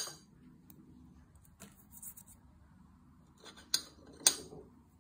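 Kitchen handling sounds while fresh rosemary is being prepared: a sharp click at the start, faint small ticks and rustles, then two sharp clicks about half a second apart near the end, from dishes and prep bowls being handled.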